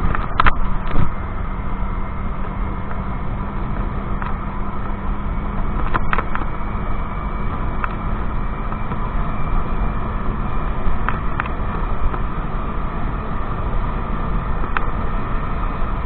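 Wind rushing over the microphone on a moving scooter, with the scooter's engine and road noise under it. A steady low hum runs through roughly the first half, and a few short sharp clicks come through.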